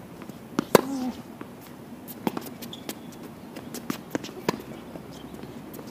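Tennis rally on a hard court: sharp pops of the ball struck by rackets and bouncing on the court, the loudest hit about a second in, with players' footsteps.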